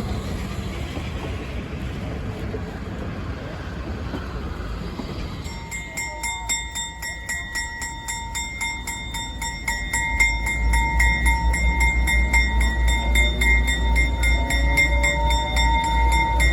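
A train running past with a steady rumble. About five seconds in, a fast, steady ringing starts, and a heavier pulsing rumble joins it near the middle.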